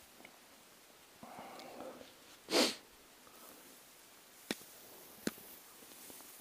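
One loud, short sniff close to the microphone about two and a half seconds in, after softer breathing; a few sharp clicks follow later.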